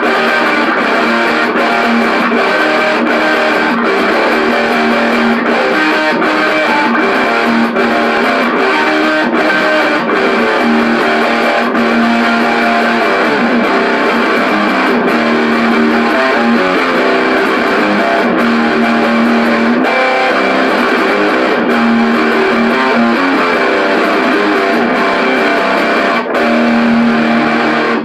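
A heavy distorted metal riff on an electric guitar tuned to drop C, played through an Orange Micro Terror amp head with the gain all the way up into its stock speaker cabinet.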